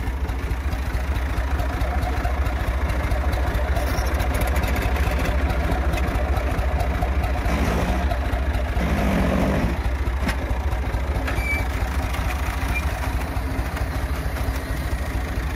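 Tractor engine idling steadily, a constant low hum, with a short louder stretch about eight to ten seconds in.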